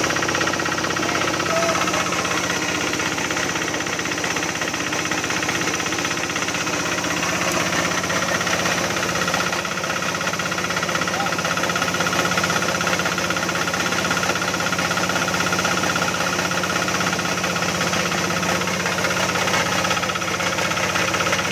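Kubota single-cylinder diesel engine running steadily, driving a mini portable coffee huller as it husks dried coffee into green beans.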